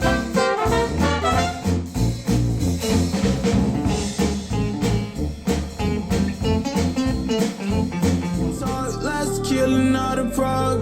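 Brass-led jazzy music with a steady beat, played back through Wharfedale Denton 80th bookshelf speakers driven by a Sony STR-DG500 receiver. The music changes character about eight seconds in.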